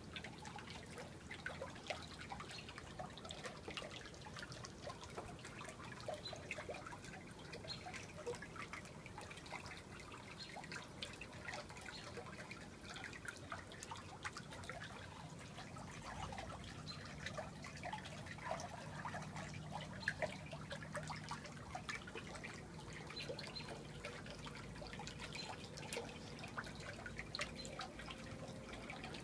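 Water from a small pond filter trickling and dripping steadily into a turtle pool: a continuous patter of small drips, faint, with a low hum underneath.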